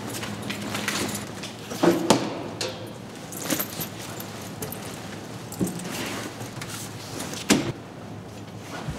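A firefighter gearing up quickly: a heavy turnout coat rustles, and metal clips and buckles jingle and clink. Several sharp clanks come as he climbs up into the fire engine's cab.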